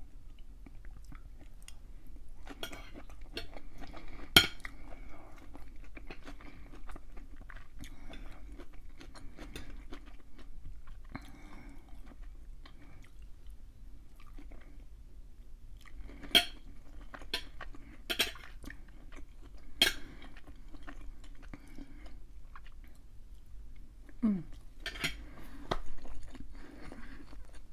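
Close-miked chewing of a hibachi chicken, steak and vegetable meal, with an eating utensil clinking sharply against the dish several times.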